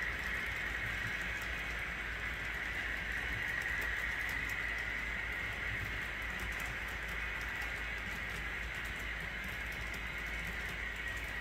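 Model freight train rolling past on a layout: a steady whir of metal wheels on the track with faint, irregular clicking of wheels over rail joints.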